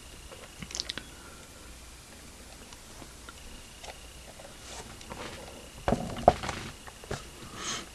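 Handling noises from a plastic scale model car being turned over in the hand: a few light clicks and taps, with the sharpest knocks about six seconds in.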